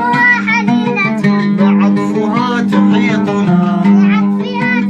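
Instrumental passage of a children's song, with a plucked guitar carrying the melody over a steady low note, between sung lines.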